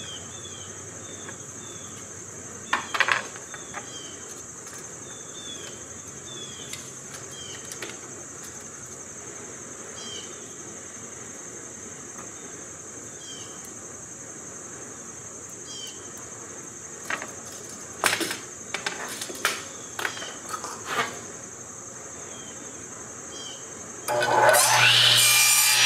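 Steady high chirring of insects, with a few light clicks and taps as a tape measure and pencil are handled. About a second before the end, the Sears Craftsman radial arm saw is switched on: its motor spins up with a quickly rising whine and then runs steadily, much louder than the rest.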